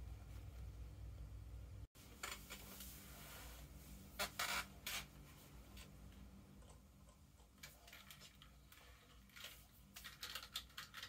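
Typing on an external computer keyboard: keys clicking in irregular bursts, starting about two seconds in after a low steady hum, with the loudest strokes a few seconds later and another quick run near the end.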